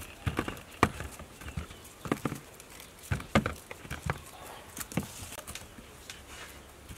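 Round Willughbeia fruits knocking against one another and against a plastic bowl as they are handled: a run of irregular dull thuds and clacks, most of them in the first five seconds.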